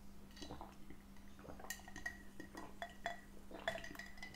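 Faint drinking from a glass jar: quiet swallows with small clicks and clinks of the glass, coming more often in the second half.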